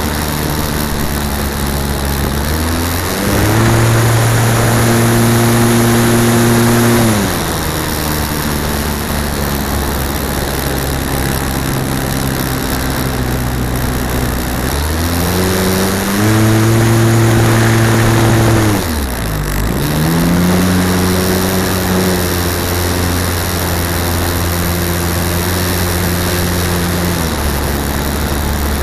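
Onboard sound of a flying model aircraft heard from its wing-mounted key-fob camera: a steady droning hum with rushing air noise. It glides up in pitch and gets louder about three seconds in, drops back around seven seconds, and does the same again from about sixteen to nineteen seconds with a brief sharp dip at the end.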